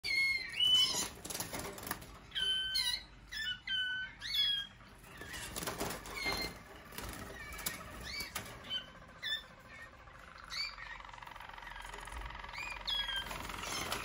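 Male roller canaries scuffling in a cage: wings flapping, with many short chirping calls that slide up and down in pitch, thickest in the first half. In the last few seconds a lower, steady trill comes in underneath.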